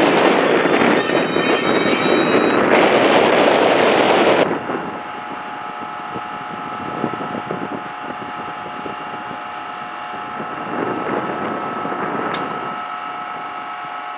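NJ Transit ALP-46 electric locomotive and its Comet coaches rolling slowly into a station, with loud wheel and rail noise and high-pitched wheel squeal. About four and a half seconds in the noise drops suddenly, leaving a steady electrical whine from the locomotive, and a single sharp click near the end.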